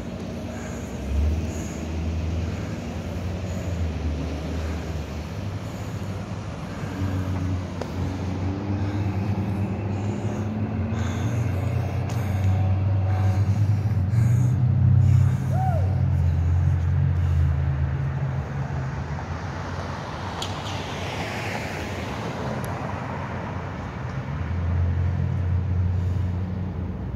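City street traffic: vehicle engines running and passing, loudest around the middle. About three quarters of the way in, a hiss swells and fades.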